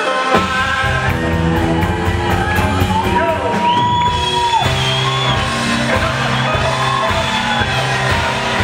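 Live rock and roll band of electric guitar, bass guitar and drum kit playing with a male lead singer at the microphone, who holds long notes over a steady beat.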